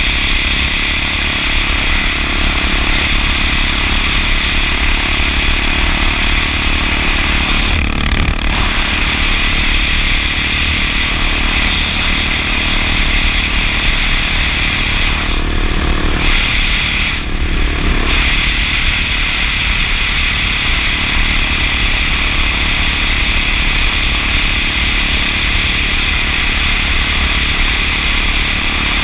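Honda XR650L's single-cylinder four-stroke engine running steadily at road speed under heavy wind rush on a helmet-mounted camera. The sound dips briefly about eight seconds in and twice more around sixteen to eighteen seconds in.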